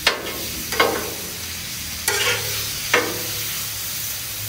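A metal spatula scrapes across a Blackstone steel griddle top four times, turning calf liver slices. Under the scrapes, the liver and onions sizzle steadily.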